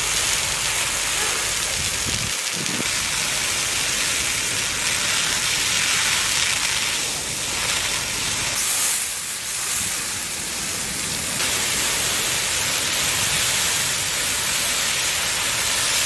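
Turkish red pine forest fire burning: a loud, steady rushing hiss that changes in tone a few times.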